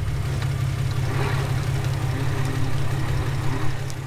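Jeep engine running, heard from inside the cab; its low note steps up at the start and then holds steady.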